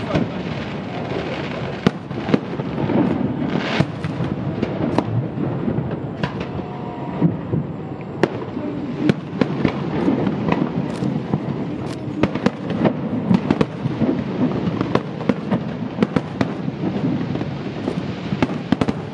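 Aerial fireworks shells bursting over open water: a continuous low rumble of booms with many sharp cracks and pops throughout.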